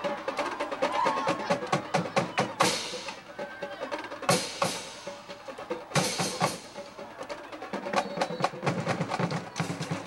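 Drumline playing a fast cadence of snare strikes, with three loud crashes spread through the middle.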